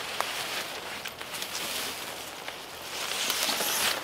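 Rustling of a poncho tarp's fabric as it is handled and lifted, loudest about three seconds in, with light footsteps in leaf litter.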